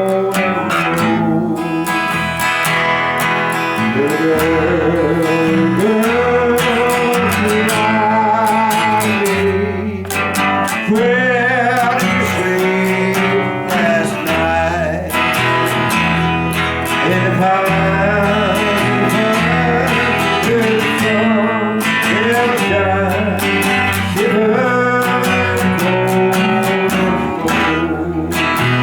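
Song with guitar and a singing voice, with a steady bass line.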